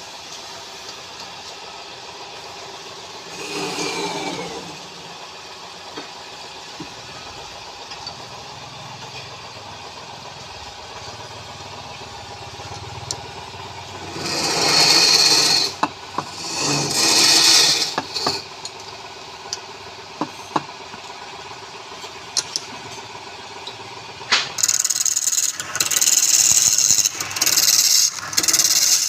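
Woodturning lathe running with a steady motor hum. A few times a tool cuts into the spinning wood in a noisy burst, and from near the end the cutting comes in rapid, loud, choppy strokes.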